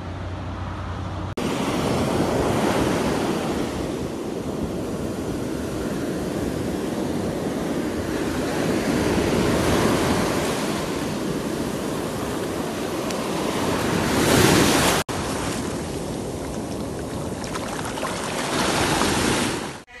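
Ocean surf: waves breaking and washing ashore in a steady rush that rises and falls in swells, with some wind noise on the microphone.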